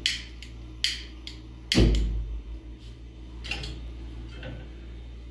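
Gas stove burner being lit with a hand lighter: a few sharp clicks, then a sudden low whoosh about two seconds in as the gas catches, followed by a few fainter knocks.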